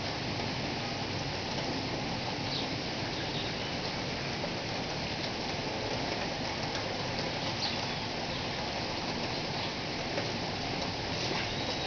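Steady rain falling, an even hiss with a few louder drops now and then.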